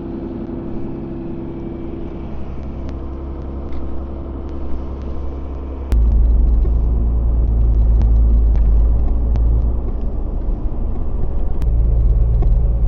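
Farm tractor engine running steadily; about six seconds in the low rumble suddenly becomes much louder.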